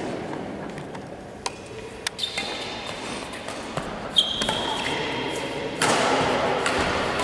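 Badminton rackets striking a shuttlecock in a rally: a few sharp, separate hits, the loudest about four seconds in and followed by a brief high ringing tone. About six seconds in the sound steps up to louder, denser noise from the spectators.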